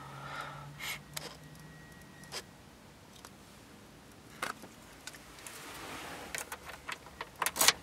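A car key going into the ignition lock: scattered faint clicks, then a quick run of sharp clicks and key jingle near the end. The engine is not started.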